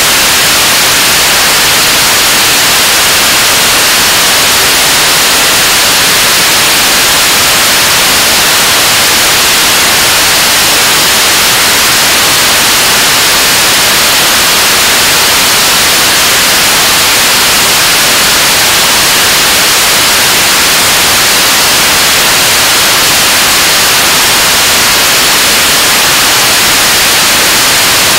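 Korean launch vehicle (KSLV-II) 7-ton-class liquid-propellant rocket engine firing steadily during a 580-second static firing test. Loud, unchanging rushing noise with a strong high hiss.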